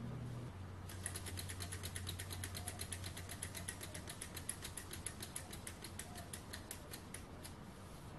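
Tarot beam-type Stirling model engine spun by hand, its moving parts clicking rapidly at about six a second, then slowing and dying away as the flywheel coasts to a stop.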